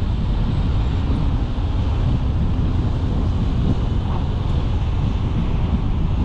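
Steady low rumble of a car driving along a street: tyre and road noise, with wind buffeting the microphone.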